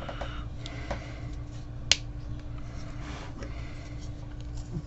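Plastic model-kit parts being handled and pressed together, with a few light clicks and one sharp click about two seconds in as a part snaps into place.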